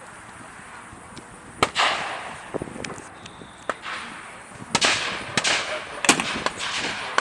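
Blank gunfire in a mock battle: a scattered string of sharp single shots, about eight to ten of them, beginning about a second and a half in, several trailing off in a long echo.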